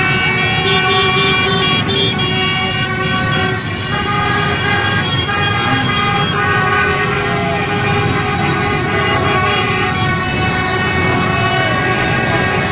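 Many vehicle horns honking and tooting at once over steady traffic noise, with overlapping tones throughout.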